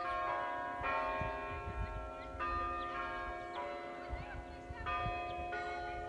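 Tower chime bells ringing a slow melody: a new bell is struck about a second in, again about two and a half seconds in and again near five seconds, each note ringing on and overlapping the one before.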